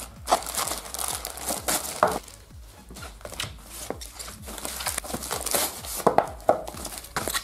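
Packaging crinkling and rustling in irregular bursts as a smartphone package is unwrapped and handled, with some tearing sounds.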